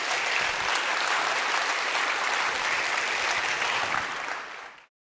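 Audience applauding steadily, then fading and cutting off suddenly near the end.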